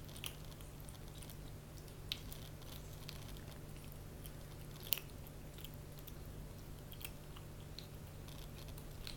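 Kitten chewing dry kibble: irregular crisp crunches, the sharpest about two seconds in and halfway through, over a steady low hum.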